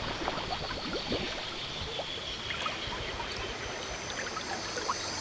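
River water trickling and lapping, with many small splashy ticks, over a steady high-pitched hum; a second, higher hum comes in about halfway.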